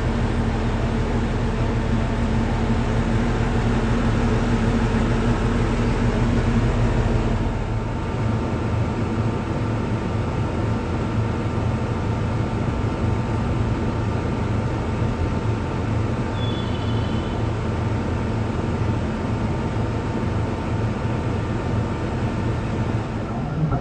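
A KiHa E130 diesel railcar standing at a station platform, its engine idling with a steady rumble and hum. The tone of the hum changes slightly about seven seconds in.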